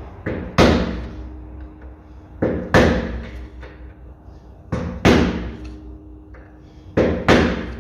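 Hammer striking metal in quick pairs of blows, four pairs about two seconds apart, each blow ringing briefly: knocking off the small grease cap on the rear wheel hub.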